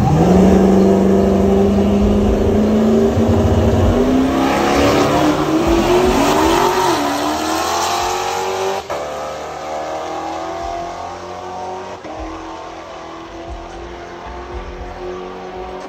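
High-powered street car's engine revving hard, its pitch climbing steadily for about seven seconds as the car accelerates down the strip. It then drops back to a steadier note and fades with distance.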